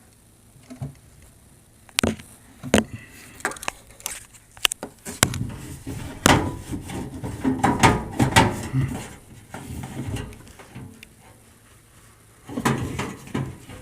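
Irregular knocks and clatter of hard objects being handled, with a denser few seconds of rattling and scraping in the middle and more knocks near the end.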